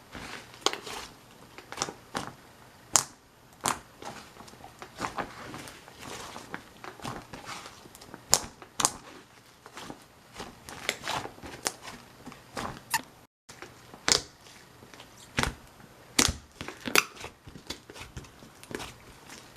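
Hands squishing and stretching slime, with irregular sticky pops and crackles as it folds and presses.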